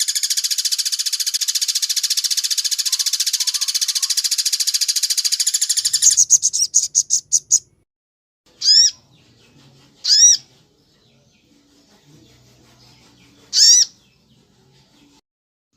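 A songbird's fast, high, rattling trill that breaks up into separate notes and stops after about seven and a half seconds, followed by three loud, sharp single call notes a few seconds apart.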